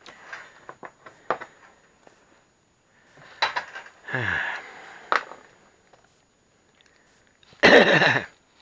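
Scattered clicks and knocks of tools and sheet metal while a screw is removed from the panel of a 1990s GE gas kitchen range, with a short sound falling in pitch about four seconds in and a loud, dense rasping sound near the end.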